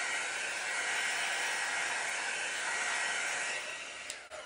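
Handheld heat embossing tool blowing hot air over wet acrylic pour paint to pop air bubbles: a steady hiss with a constant high fan whine. About four seconds in it is switched off with a click, and the whine falls as the fan spins down.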